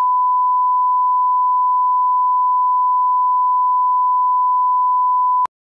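Steady 1 kHz reference test tone, the line-up tone played with broadcast colour bars, holding one unchanging pitch and cutting off suddenly near the end.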